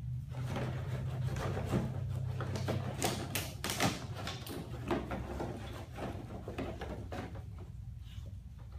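Empty plastic water bottles crinkling and clattering as a dog noses and paws through them in a plastic kiddie pool, an uneven run of clicks and rustles that is busiest about three to four seconds in. A steady low hum runs underneath.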